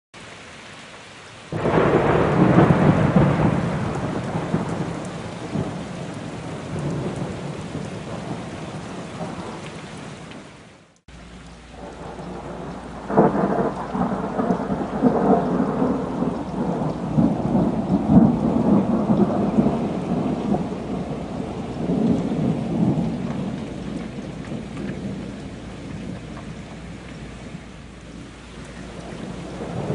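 Thunderstorm: a peal of thunder breaks suddenly about a second and a half in and rumbles away over several seconds. A second peal starts about thirteen seconds in and rolls on for some ten seconds, all over a steady hiss of rain. The sound cuts out for a moment just before the second peal.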